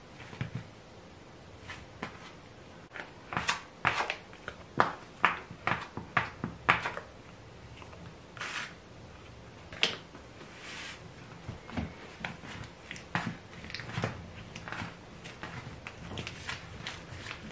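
Hands kneading soft yeast bread dough on a wooden board while butter is worked in: irregular sharp slaps, presses and taps of dough and hands on wood, busiest in the first half and again near the end.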